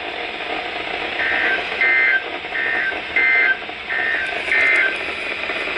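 Six short bursts of the Emergency Alert System's SAME digital data code: a two-tone warbling beep near 2 kHz, each burst about a third of a second and coming in pairs, marking the edge of an alert over radio hiss.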